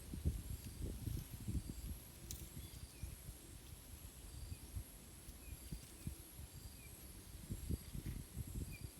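Wind buffeting the microphone in irregular low rumbling gusts, strongest in the first two seconds and again near the end. A steady high whine and a few faint, short high chirps sound faintly behind it.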